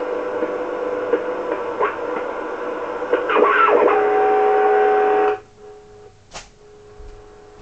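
Uniden 2020 HF transceiver's receiver audio from its speaker: band hiss with steady heterodyne whistles, and a few whistles sliding in pitch as it is tuned. About two-thirds of the way through, the noise drops away abruptly, leaving faint steady tones.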